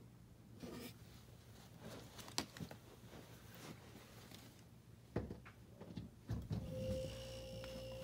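Mini fridge compressor starting up on a newly replaced start relay: a couple of knocks about five and six seconds in, then from about seven seconds in a steady hum with a steady whine, the sign that the compressor is now running.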